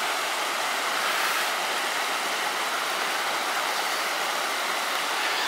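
Shallow, rocky mountain stream rushing steadily over stones, with white water running between boulders.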